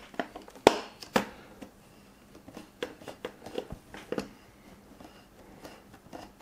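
A cross-head screwdriver turning the spring-loaded mounting screws of an AMD stock CPU cooler. It makes irregular small clicks and knocks as the tip seats and the screws turn, with the loudest click about a second in.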